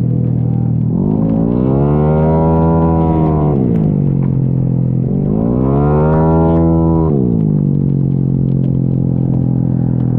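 Race-tuned Yamaha Mio J automatic scooter's single-cylinder four-stroke engine, bored out to 150 cc, heard onboard at racing speed. The revs climb and hold high for a couple of seconds, drop, climb again to a peak about six seconds in, then fall back and stay lower near the end.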